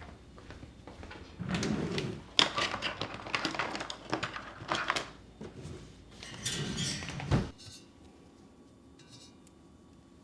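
Household handling sounds: a busy run of clicks, knocks and rustling that starts about a second and a half in and stops abruptly about seven and a half seconds in, leaving faint room tone.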